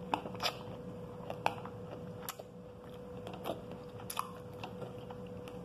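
Mouth chewing pomegranate arils, the hard seeds crunching in irregular small cracks and clicks, over a faint steady hum.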